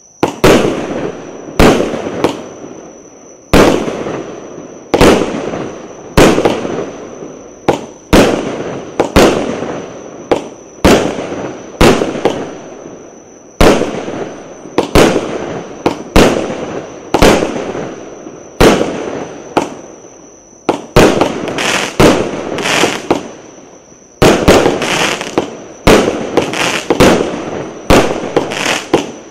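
A 49-shot consumer firework cake firing shot after shot: a run of sharp bangs, each trailing off over about a second, coming roughly once or twice a second and faster in the last third.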